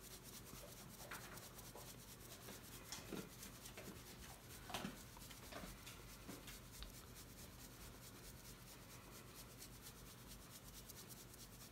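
Faint rustling of dry barbecue rub being shaken from a shaker and falling onto a rack of pork ribs, in a few soft, uneven shakes, one a little louder about five seconds in.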